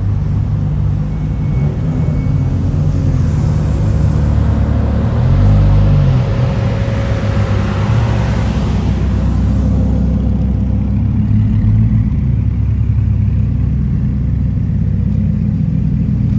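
Lamborghini Huracán V10 engines running as a slow line of the cars rolls past, a steady deep exhaust rumble. About five to nine seconds in, it swells louder with added hiss as a car passes close.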